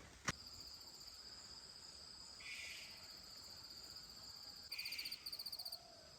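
Insects trilling in a steady high drone, and one begins a loud, fast-pulsing trill about three-quarters of the way through. A single footstep-like click comes right at the start.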